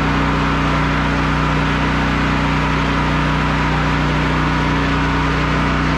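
Engine of a generator running at a steady, constant speed with an even low hum, supplying power to the lights.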